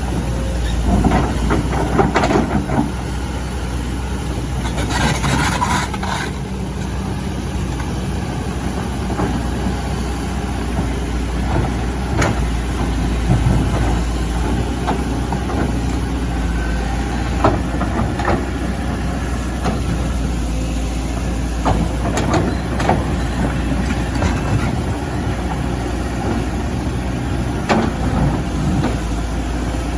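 Hydraulic excavator's diesel engine running steadily, with scattered knocks and clanks as the machine works, and a brief rushing noise about five seconds in.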